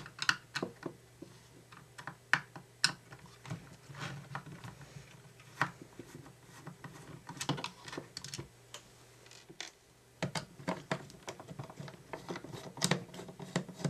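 A small screwdriver working the screws out of the plastic underside of a toy RC spy video car: irregular light clicks and taps as the driver and screws knock against the hard plastic.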